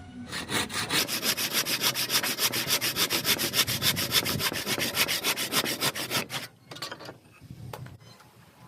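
Wood being sanded by hand with fast back-and-forth strokes, about seven a second, stopping about six seconds in; a few light knocks follow.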